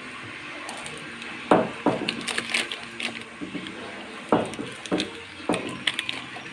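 Hard items knocking and clattering as they are set down in a mini refrigerator: about five sharp knocks, two close together about a second and a half in and a few more in the last couple of seconds.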